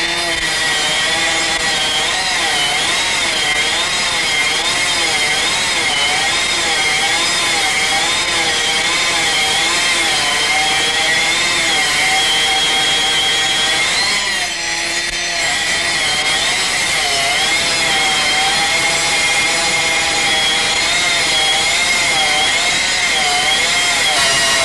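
Portable hydraulic stone-cutting machine running its cutting disc through stone, a steady whine whose pitch wavers up and down about once a second as the load changes. It briefly dips about two-thirds of the way through.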